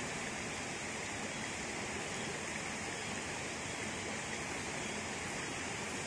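Shallow rocky stream running, a steady rush of water that does not change.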